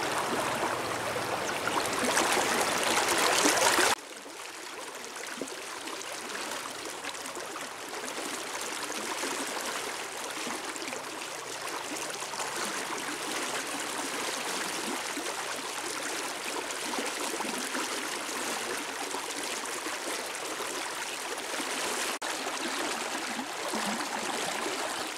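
Flowing river water running steadily; it drops suddenly to a quieter, even level about four seconds in.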